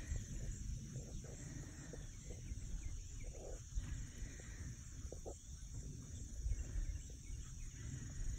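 Distant cattle lowing faintly a few times over a steady low rumble.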